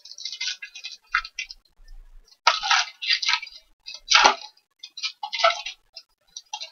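Foil trading-card pack wrapper crinkling in irregular bursts as it is pulled open by hand.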